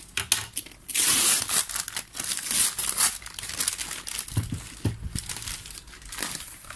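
Packaging being crumpled and rustled by hand as a parcel is unwrapped, loudest in the first few seconds, with two dull knocks past the middle.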